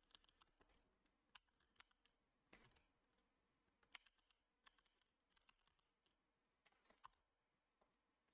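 Near silence broken by faint, scattered computer keyboard keystrokes, about ten short clicks at an uneven pace.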